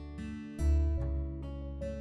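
Background music: an acoustic guitar playing plucked notes over a low bass note, a new note sounding about every half second.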